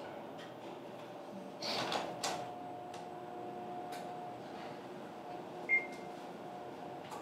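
Handling a cereal box and eating dry cereal from it: a short rustle of the box about two seconds in and light scattered crunches. A faint steady hum comes in just after the rustle, and a short high beep near six seconds is the loudest sound.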